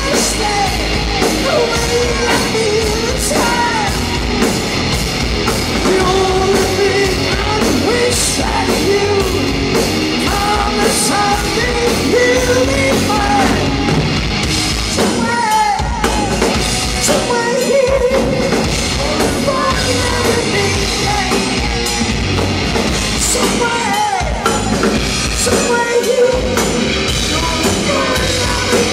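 Live hard rock band playing: a lead singer over two electric guitars, bass guitar and a drum kit, loud and steady, recorded from among the club audience.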